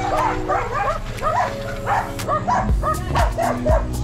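A dog barking rapidly, about three barks a second, over background music with steady held chords. A low drumbeat comes in about two and a half seconds in.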